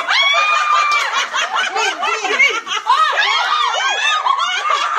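Several children and adults laughing and shrieking excitedly, many high voices overlapping, with one long held squeal in the first second.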